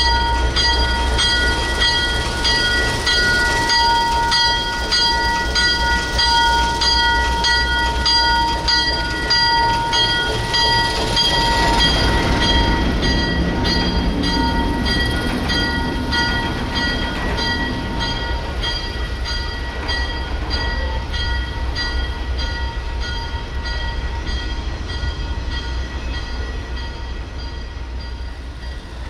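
Slow freight train passing behind an ALCO S6 switcher: a railroad bell rings steadily in quick, even strokes over the low rumble of the locomotive and the rolling freight cars. A rumble of wheels swells about halfway through, and the whole sound fades out near the end.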